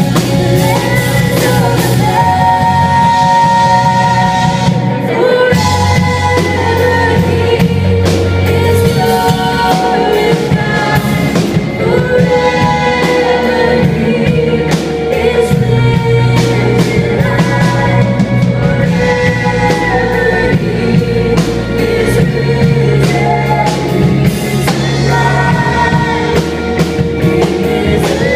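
Live worship band playing: a woman singing lead through the PA over electric guitars, keyboard and a drum kit.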